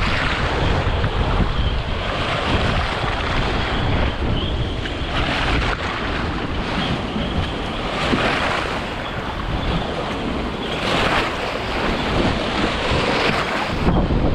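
Storm wind from a hurricane buffeting the microphone with a steady low rumble, while waves wash over a flooded wooden marina dock and splash against it in surges every few seconds.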